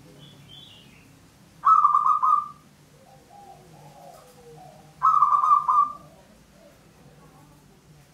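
Zebra dove (perkutut) cooing: two loud bursts of quick, rolling staccato notes, each about a second long and about three seconds apart, with softer lower coos in between.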